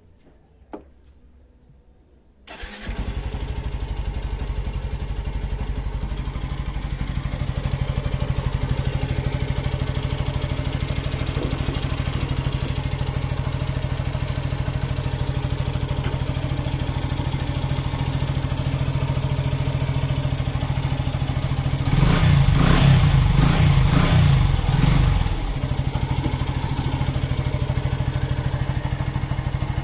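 Yamaha FZi V2.0 motorcycle's single-cylinder air-cooled engine, freshly refilled with oil, started with a click and then catching about two and a half seconds in and idling steadily. It runs louder for about three seconds near the end, then settles back to idle.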